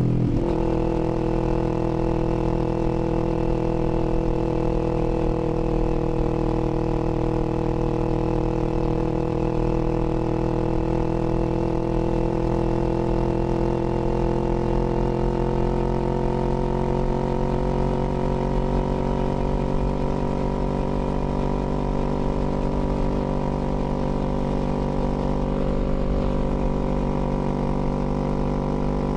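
2021 Kawasaki Z400's 399 cc parallel-twin engine running under way at a steady throttle, its pitch creeping slowly up as the bike gains speed.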